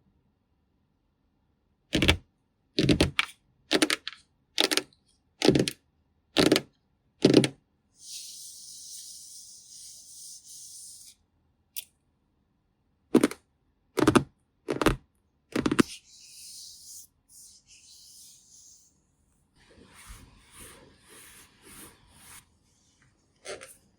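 Close-miked handling of makeup items: a series of sharp taps and knocks about a second apart, then a few seconds of high hissing, then more knocks and softer rustling.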